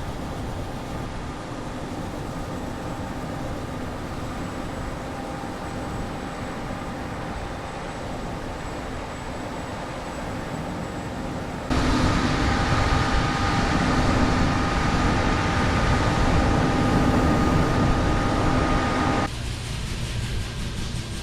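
Farm harvest machinery running steadily: a continuous engine hum with a few held tones. It turns abruptly louder about twelve seconds in and drops back sharply near the end.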